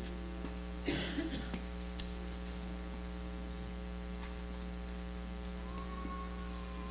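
Steady electrical mains hum from the sound system, with one short burst of noise about a second in.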